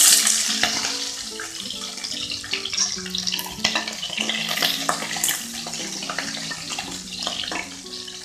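Chopped onions sizzling in hot oil with mustard and cumin seeds in a stainless steel kadai, loudest at the start and settling down, while a steel ladle stirs them with small scraping clicks against the pan.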